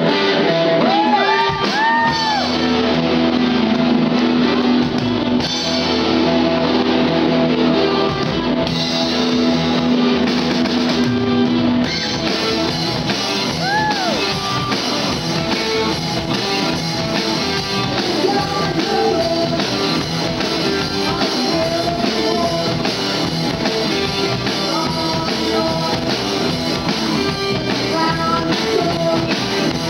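Live rock band playing electric guitars, bass and drum kit, with a singer. Over the first twelve seconds a long note is held under the voice, and about twelve seconds in the band's sound fills out.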